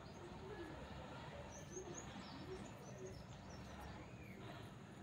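Faint outdoor background with a few scattered bird calls: short high chirps and some soft low notes.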